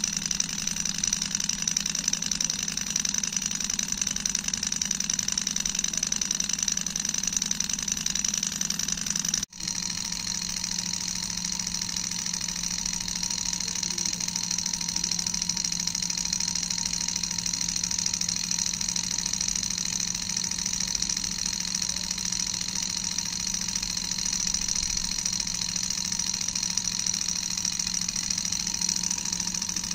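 Small air-cooled metal Stirling engine running steadily over an alcohol burner, its flywheel and propeller fan spinning. The running sound drops out briefly about nine and a half seconds in.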